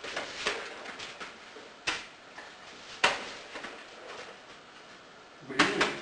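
Footsteps and a German shorthaired pointer puppy's claws clicking and scuffing on a hard wooden floor as a man walks with the dog at heel. There are sharp knocks about two and three seconds in and a louder scuffle near the end.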